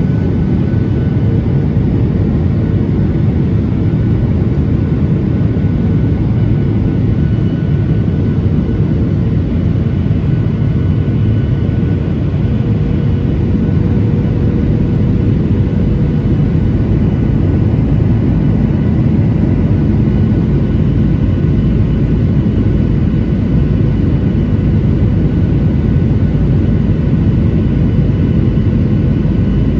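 Boeing 737-900ER jet airliner: a steady rumble of its engines and the rushing air, even throughout, with a few faint steady whining tones above it.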